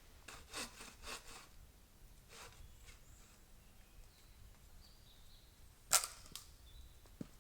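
A few sharp clicks and light knocks: a quick cluster in the first second and a half, one more a second later, and the loudest about six seconds in.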